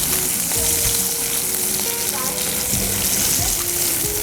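Garlic sizzling in hot olive oil as it is sautéed in a pan: a steady frying hiss.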